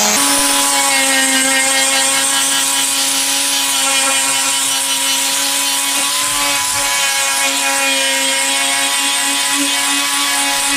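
Angle grinder running steadily at speed with a polycarbonate rust-removal abrasive wheel, scrubbing rust and paint off a truck's thin sheet-metal roof. It makes a constant whine over a rough grinding hiss.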